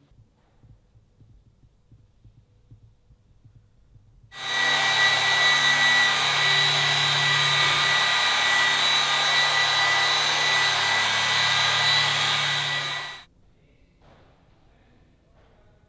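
Rupes LHR15 random orbital polisher running steadily on car paint with a finishing polish on a micro-cut pad: a motor hum under a steady high whine. It starts abruptly about four seconds in and cuts off just as abruptly some nine seconds later.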